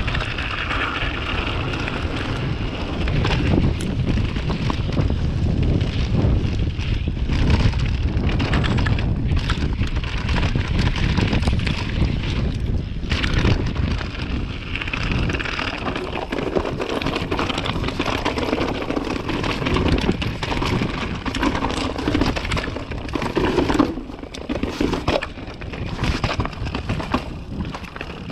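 Wind buffeting an action camera's microphone as a Trek mountain bike descends a wet gravel and mud trail. Tyres crunch over loose stones, and many quick clicks and knocks come from the bike rattling over the rough ground.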